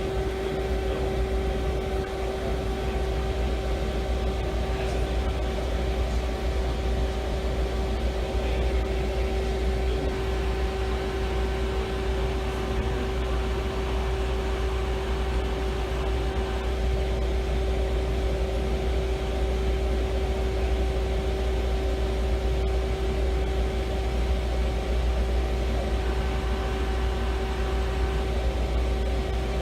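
Robinair Cool-Tech AC recovery machine running with a steady, even hum as its compressor pulls refrigerant out of a car's AC system during recovery.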